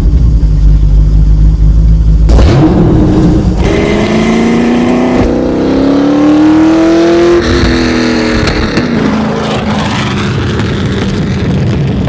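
Racing car engine running loud: a deep steady rumble, then from about four seconds in the pitch climbs as it revs and accelerates, falling away after about eight seconds.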